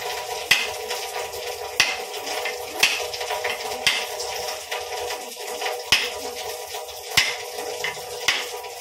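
A small hammer knocking on a whole coconut shell, about seven sharp taps a second or so apart, cracking the nut along a line around its middle.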